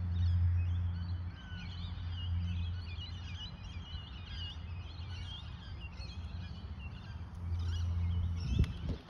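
Many small birds chirping and calling, with a steady low rumble during the first three seconds and again from about seven and a half seconds in, and a couple of sharp knocks near the end.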